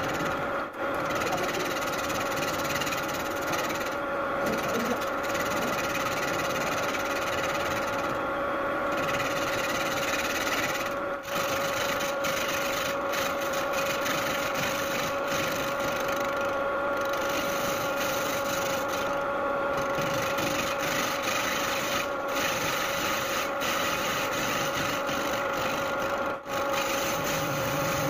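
Metal lathe turning a motorcycle wheel hub while a cutting tool bores out the welded aluminium in its bearing housing: a steady scraping cut over the lathe's steady hum, dipping briefly three times.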